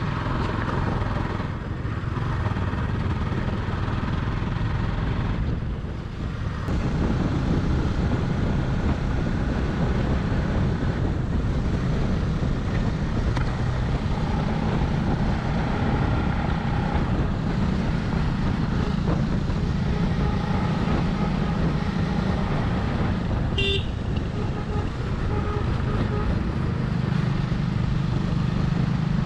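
Motorcycle engine running steadily under way, with road noise throughout. About three-quarters of the way through there is a brief high beep.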